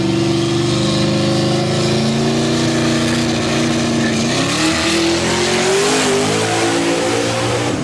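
Z06-powered donk's V8 engine revved up and held at high rpm, then climbing higher about four seconds in and dropping off right at the end.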